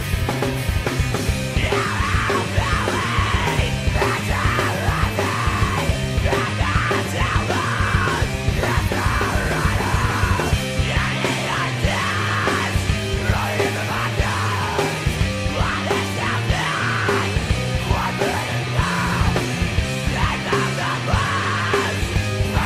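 Loud rock song: a full band with drums playing throughout, and yelled vocals coming in about two seconds in.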